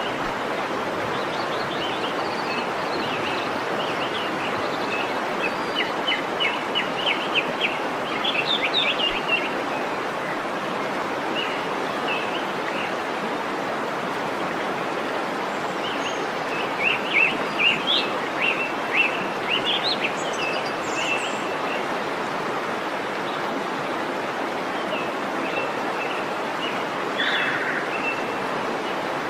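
Waterfall rushing steadily, with small birds chirping over it in two quick runs of rapid chirps, about six seconds in and again around seventeen seconds in, and a few scattered calls between.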